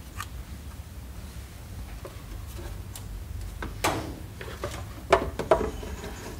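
Scattered clicks, knocks and rubbing of a panel air filter element being handled and worked into a car's plastic air filter housing, with the sharpest knock about five seconds in. A low steady rumble runs underneath.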